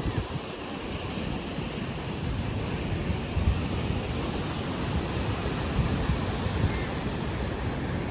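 Ocean surf washing on the beach, with wind buffeting the microphone in an uneven low rumble.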